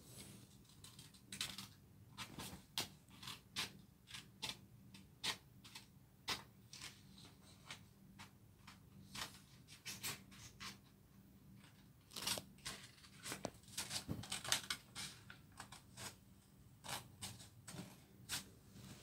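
Small orange children's scissors snipping through a sheet of paper: short irregular snips with pauses between them, coming thickest about two-thirds of the way through, with the paper rustling as it is handled.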